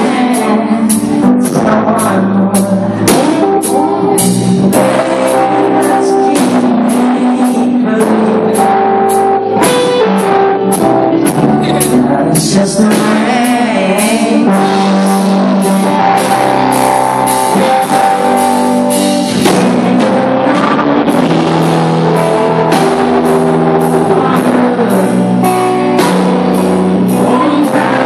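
Live country-pop band playing loud: a male lead singer over electric guitar and a drum kit keeping a steady beat of about two strokes a second, picked up by a phone's microphone in the audience.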